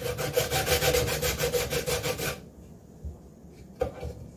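A lemon being zested on a fine metal grater with a catch drawer: the peel is rubbed quickly back and forth in a rhythmic rasp of about seven strokes a second. The rasping stops after about two seconds, and a couple of light knocks follow as the grater is handled.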